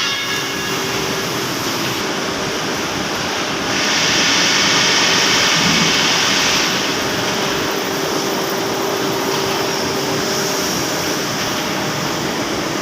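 Factory machinery running loudly and steadily with a constant hum. A louder hiss rises about four seconds in and lasts roughly three seconds.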